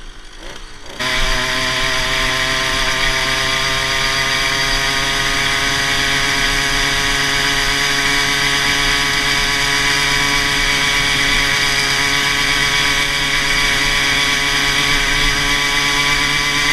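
Two-stroke motorized-bicycle kit engine under throttle. The engine note jumps in loudness about a second in, then holds steady and creeps slowly up in pitch.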